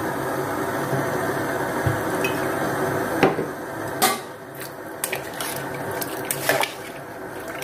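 Metal ladle stirring soup in a stainless steel pot, clinking and knocking against the pot several times in the second half, over a steady hiss.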